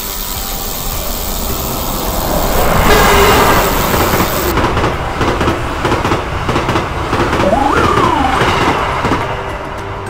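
A train passing: loud running noise that builds about three seconds in and eases off near the end, with a brief tone that rises and falls about eight seconds in.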